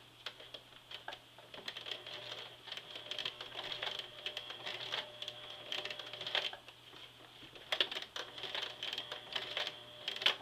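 Sewing machine, set up on its free arm, stitching through several thicknesses of denim. It runs in rapid ticking stretches with a brief slow-down about seven seconds in, then starts up again.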